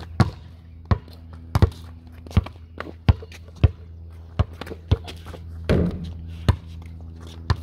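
Basketball bouncing in a steady dribble, one sharp bounce about every two-thirds of a second, then a few more irregular knocks.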